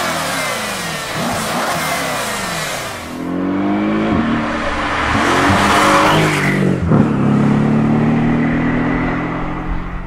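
Mercedes SL 63 AMG's twin-turbo V8 revving hard, its pitch sweeping up and down quickly for the first few seconds. The car then accelerates past with a climbing engine note that is loudest about six seconds in, breaks off abruptly, and settles into a lower, steadier exhaust note.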